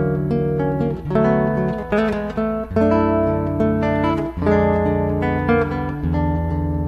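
Two acoustic guitars playing an instrumental passage, strummed chords and bass notes under a melody, with no singing.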